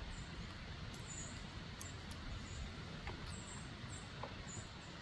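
American red squirrel chewing corn kernels: a few faint, sparse crunching clicks over a steady low background rumble.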